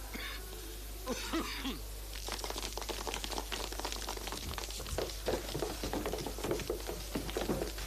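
A classroom of children getting up from wooden school desks and milling about: a dense clatter of knocks, scuffs and footsteps that starts about two seconds in. A voice cries out briefly about a second in.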